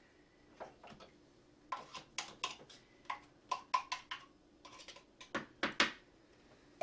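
A series of short, sharp clicks and knocks, about fifteen spread over several seconds: a spatula knocking and scraping against the plastic bowl and lid of a food processor as puréed chicken liver pâté is scraped out.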